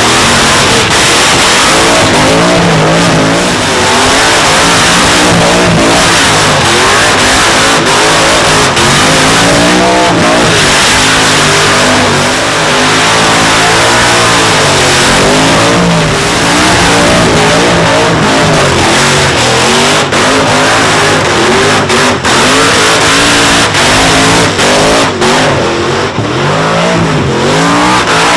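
Supercharged 700-plus-cubic-inch Chevrolet big-block V8 in an old Ford F100 pickup revving hard through a burnout, the engine note rising and falling over and over as the rear tyres spin. A few brief drops in the sound come near the end.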